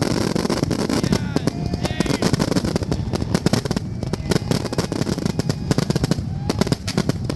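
Fireworks going off in a rapid, dense barrage: many sharp bangs and crackles in quick succession over a continuous low rumble.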